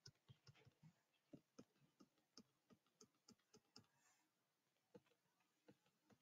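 Very faint, irregular clicks of a computer mouse button, a few each second, as short pen strokes are drawn one after another in a paint program.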